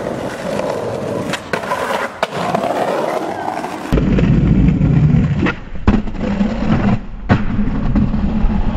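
Skateboard wheels rolling on concrete, broken by several sharp clacks of the board. About four seconds in, the rolling turns to a heavier, louder low rumble with a few more clacks.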